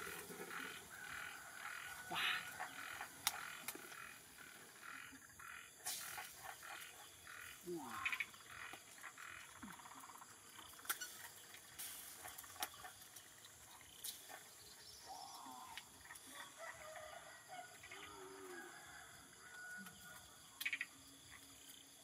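Quiet outdoor ambience of a crackling wood fire under a wok, with scattered clicks and scrapes of a metal spoon against the wok and short animal calls in the background.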